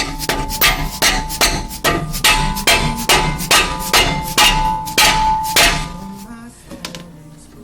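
Quick series of about seventeen hammer blows on metal, roughly three a second, each with a short metallic ring, striking the front brake caliper and pad assembly. The blows stop about six seconds in.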